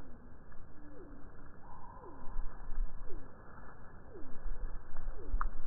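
A bird calling: a short, low, falling note repeated about once a second.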